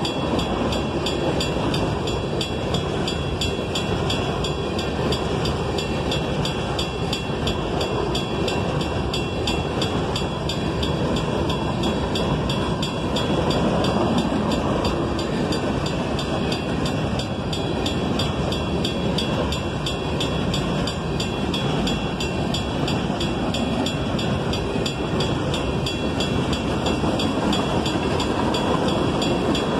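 Freight train cars rolling past at steady speed, steel wheels running on the rails with a continuous rumble and clatter. Over it runs a fast, evenly repeating high-pitched ringing.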